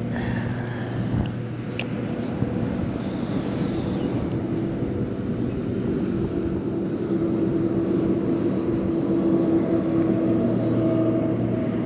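A steady mechanical drone with a held hum, slowly growing louder through the second half, over a bed of outdoor noise.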